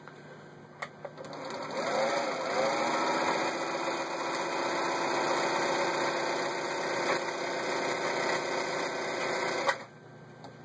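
Elna TSP 72C sewing machine stitching through fabric, presumably on its zig-zag pattern: the motor speeds up about two seconds in, runs steadily for about eight seconds, then stops abruptly near the end. A couple of small clicks come just before it starts.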